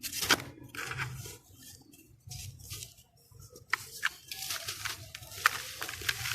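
Dry charcoal sand-cement slab being crumbled by hand: gritty crunching and crackling with sharp cracks. A strong crunch comes just after the start, then a lull in the middle, then denser crumbling in the second half.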